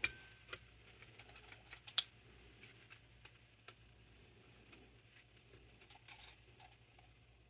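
Faint, irregular clicks and light taps of small metal carburetor parts being handled while a Carter Thermoquad's linkage rod is fitted, with a sharper click about two seconds in.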